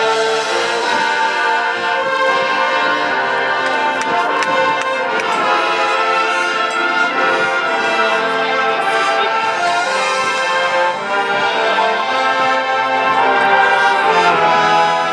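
Marching band playing: brass holding full sustained chords over mallet percussion, with occasional sharp percussion strikes.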